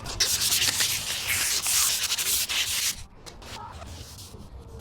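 Sandpaper rasping back and forth in quick hand strokes, stopping about three seconds in, followed by a few light clicks.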